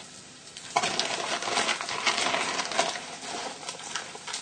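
Hot oil sizzling and crackling in a frying pan of new potatoes and rosemary on high heat. It sets in abruptly about a second in, a dense patter of fine pops and ticks.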